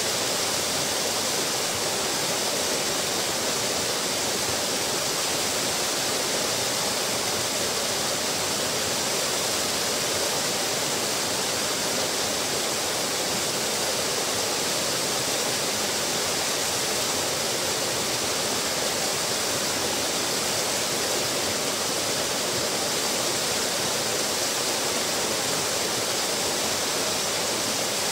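Small waterfall pouring over a stone weir into a pool: a steady, unbroken rush of falling, splashing water.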